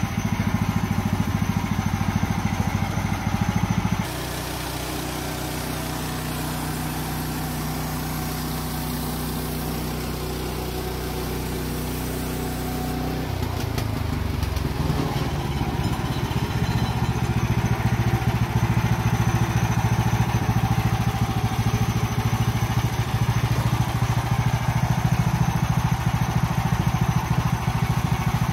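Engine of a sawmill running through a milling session. About four seconds in its sound changes abruptly to a smoother, slightly quieter hum; a little past the middle the pitch slides down, and it then settles into a rougher, pulsing run that slowly grows louder.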